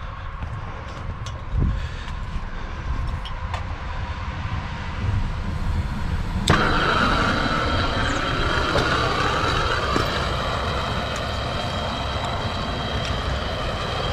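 A soldering torch for copper pipe is lit with a sharp pop about six and a half seconds in, then burns with a steady hiss. Before it lights there is only a low rumble.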